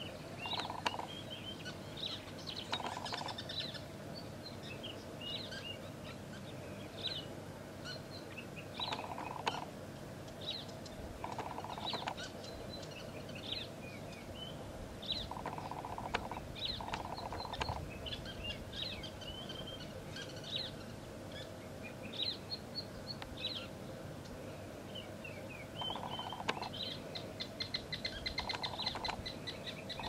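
Colony of sociable weavers calling at their communal nest: many short, high chirps and twitters overlapping without a break, with a lower buzzy note that comes back every few seconds.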